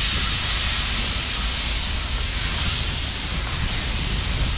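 Wind buffeting the microphone: a steady, unbroken rumble under an even open-air hiss.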